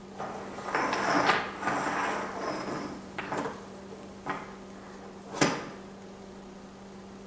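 Rattling and clattering of hard objects being handled for about three seconds, then three separate sharp knocks, the last the loudest.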